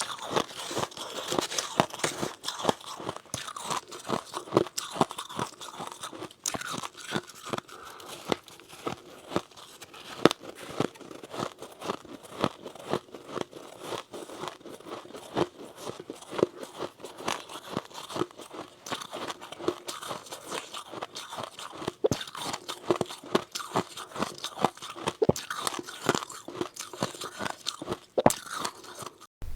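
Someone biting and chewing powdery freezer frost (snow ice) close to the microphone: a continuous run of crisp, irregular crunches.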